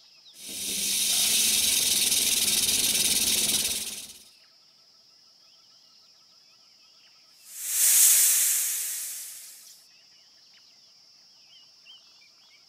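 Rattlesnake shaking its rattle in a steady buzz for about four seconds. A few seconds later comes a snake's hiss that swells and fades away.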